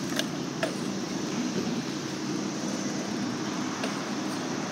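Steady street noise: a hum of traffic and city background, with a few light clicks.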